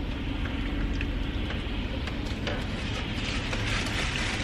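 Steady low rumble of a car's idling engine heard inside the cabin, with small scattered clicks of someone chewing fries.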